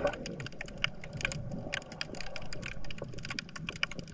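Underwater crackling: an irregular run of sharp clicks, several a second, over a low rumble.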